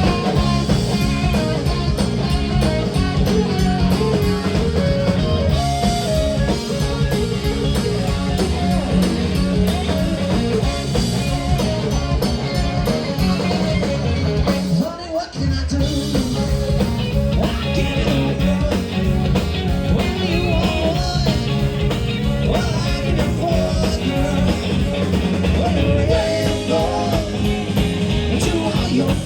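Live rock band playing with a singer, loud and continuous, with a brief dip about halfway through.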